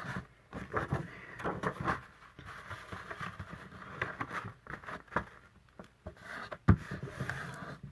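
Cardstock being folded and creased along its score lines: scattered rustles and crinkles of stiff paper, with a couple of sharper taps, one about five seconds in and a louder one near seven.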